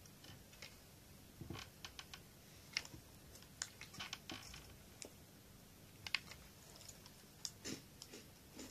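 Faint, irregular crisp clicks and crunches as crunchy Koala's March biscuits are chewed and picked out of their paper box.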